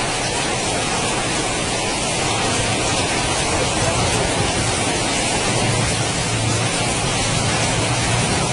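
Strong wind from a tornado passing close by: a steady, even rushing hiss that holds at one level throughout.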